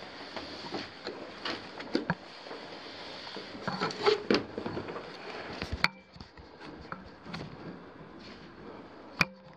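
Irregular wooden knocks and scrapes of someone climbing on a wooden ladder, with gear rubbing against the rails; the handling is busiest in the first six seconds, with two sharp clicks, one about six seconds in and one near the end.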